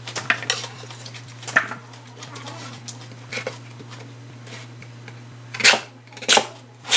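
Kitchen knife cutting a large Korean radish on a wooden cutting board: scattered sharp knocks of the blade striking the board, the two loudest near the end.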